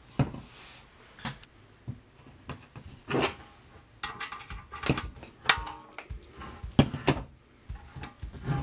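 Hand pop riveter being worked against the pressed-steel toy truck's metal bumper: a series of sharp metal clicks and snaps as rivets are set, mixed with knocks of the parts being handled on a table.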